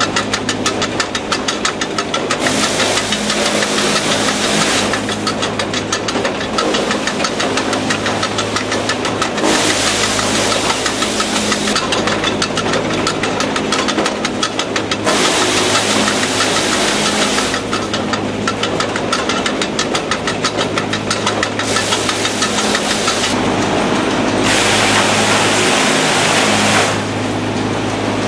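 Möhringer chipper canter running with a steady low hum and a fast clatter from its feed chain conveyor. About five times, a loud rushing noise lasting two or three seconds comes in as a log passes through the chipping heads and is cut into chips.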